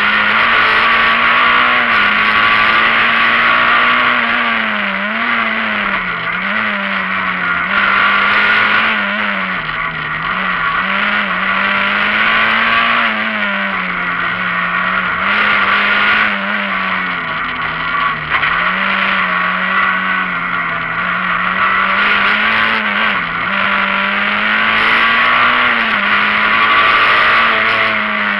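Rally car engine heard from inside the cabin, driven hard, its revs held high and dipping and recovering again and again through the stage, over loud road noise.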